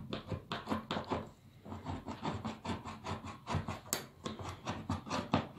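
Hand-held lever can opener punching and prying its blade around the rim of a tin can lid: a steady run of sharp clicks, about four a second, stopping near the end.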